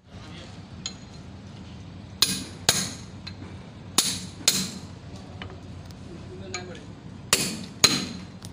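Six hammer blows on the steel steering knuckle of a tractor's front axle, struck in three pairs, each blow ringing with a metallic clink. They come while the knuckle assembly is being driven into place over its freshly greased king pin bearing.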